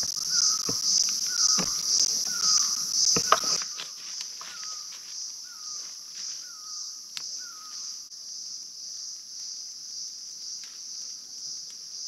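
Steady, high, pulsing drone of an insect chorus in the forest. A bird repeats a short call about every half second until about eight seconds in. A few sharp snaps come in the first three seconds.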